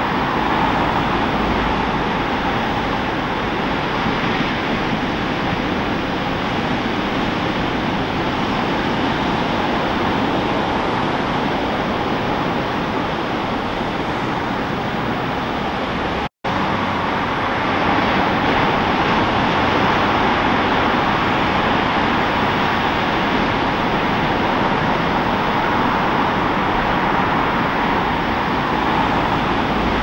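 Steady roar of large waves breaking, with a momentary break in the sound about sixteen seconds in.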